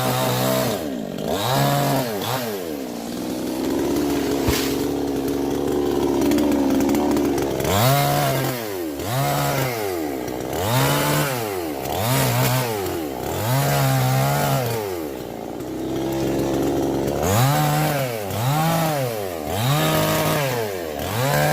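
Two-stroke chainsaw running, first held at high speed for a few seconds, then revved up and down over and over, its pitch rising and falling about once a second.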